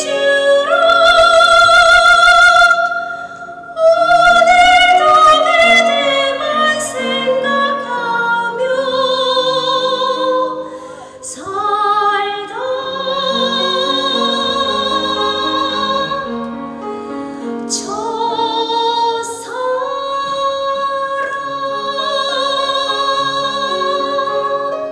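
Woman singing in a classical, operatic style with wide vibrato on long held notes, over instrumental accompaniment.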